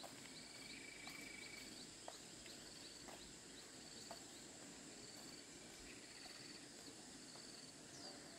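Faint outdoor ambience: a short high chirp from a bird or insect repeats about once a second over a soft hiss, with a few faint ticks.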